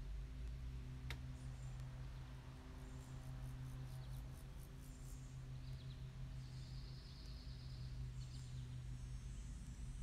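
Low, steady drone of a Boeing 777 jet airliner passing high overhead while descending. Insects chirp over it, with rapid high pulses in the middle and a short trill about two-thirds of the way through.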